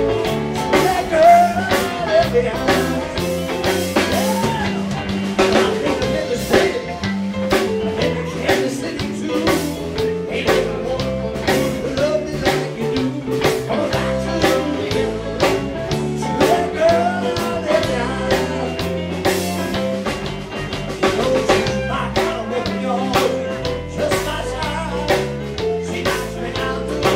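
Live blues band playing a jam with electric guitar, bass and drum kit, on a steady beat with bending guitar or vocal lines over a walking bass.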